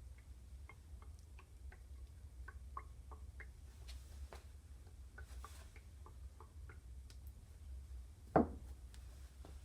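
A series of light, irregular clicks and ticks, with one louder knock about eight seconds in, over a steady low hum.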